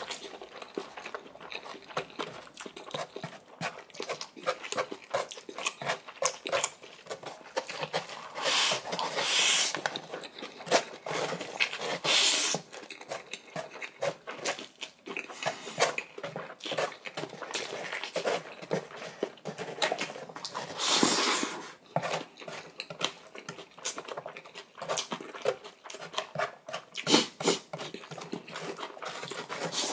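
Close-miked eating: instant noodles slurped in several long draws, about 9, 12 and 21 seconds in, with wet chewing and lip smacks in between.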